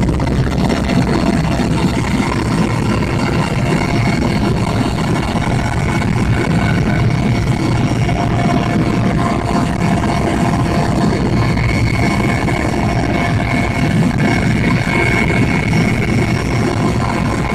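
Helicopter in flight, heard from inside the cabin: steady engine and rotor noise with a steady high whine over it.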